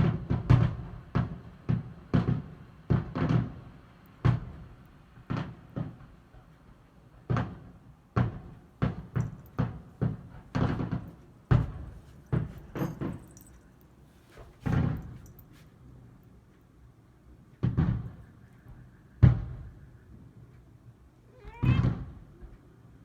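Fireworks bursting in an irregular series of deep booms, some in quick clusters, each with a short rumbling tail.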